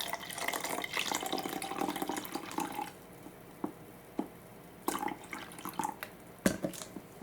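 Gatorade pouring from a plastic bottle into a cup for about three seconds. Then a few light knocks and clicks, one sharper than the rest near the end.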